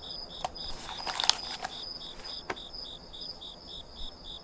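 Crickets chirping in an even pulse, about three chirps a second, with a few soft clicks in the first half.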